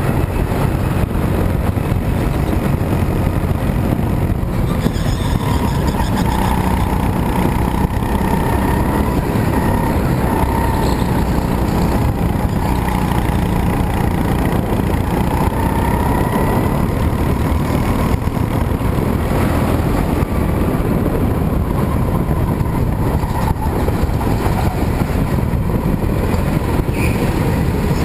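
Go-kart engine running continuously under throttle as the kart laps an indoor track, heard from on board the kart.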